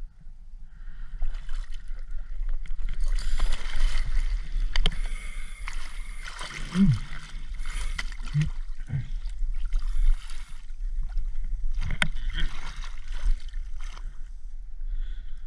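Lake water splashing and sloshing around a camera held at the waterline as a diver moves about and handles a swim fin, with sharp small splashes and a steady low rumble underneath. The splashing is busiest from about three to eleven seconds in and again near the end.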